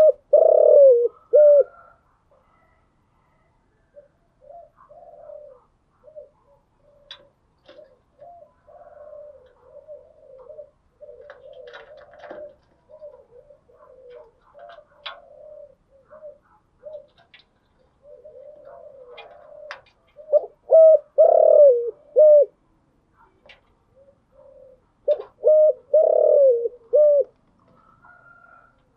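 Spotted dove cooing: three loud phrases of several quick coos each, one at the start, one about two-thirds through and one near the end, with fainter, broken cooing in between.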